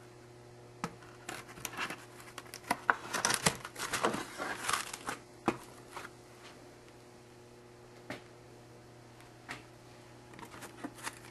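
Foam board pieces being handled and fitted together: crackly rustling and scraping with sharp clicks, busiest from about one to six seconds in, then a few scattered clicks.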